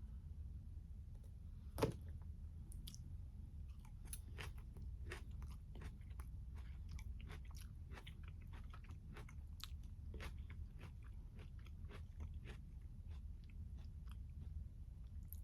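Close-miked chewing of a tomato, peach and basil salad: many small wet clicks of mouth and teeth, over a steady low hum. One sharp click a little under two seconds in stands out as the loudest sound.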